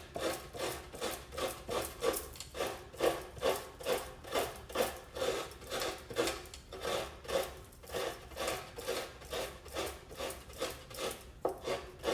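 Fresh coconut half being scraped against the serrated blade of a traditional coconut grater, a steady rhythm of rasping strokes at about two and a half a second.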